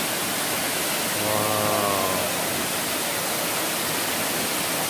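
Waterfall pouring steadily into a rock pool, a constant rushing of water. A person's voice sounds briefly about a second in.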